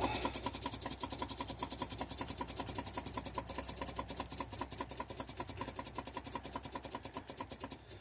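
Starter solenoid on a Cummins ISX chattering in a rapid, even run of clicks, about ten a second, with no cranking, which the owner takes for a failing starter.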